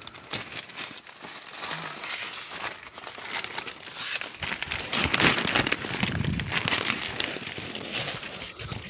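Paper grape bags rustling and crinkling as bagged bunches are handled and carried. The crinkling is loudest about five to seven seconds in.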